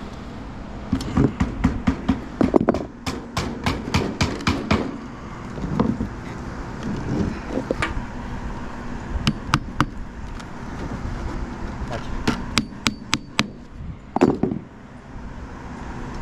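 Hammering: a quick run of sharp hammer blows, about four a second, then short groups of blows with pauses between, and one heavier blow near the end.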